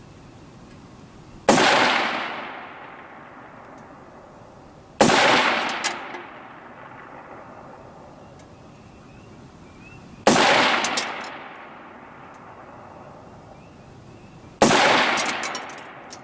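Four single rifle shots from a Ruger AR-15 firing 5.56 rounds, spaced about four to five seconds apart. Each is a sharp crack with a tail that fades over about a second.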